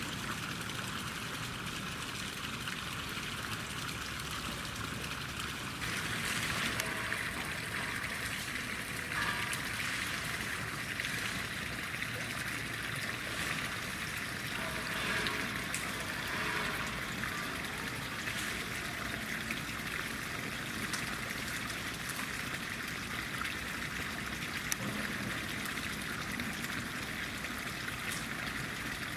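Steady trickling, running water.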